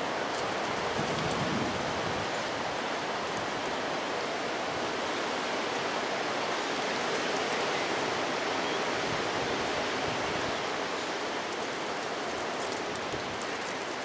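Strong windstorm wind rushing through the branches of bare trees: a steady rushing hiss that eases slightly near the end.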